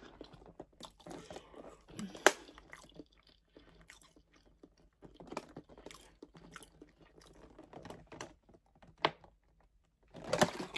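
Close mouth sounds of a person drinking water from a plastic bottle and chewing food: soft gulps, smacks and scattered clicks, with a sharp click about two seconds in and another near the end.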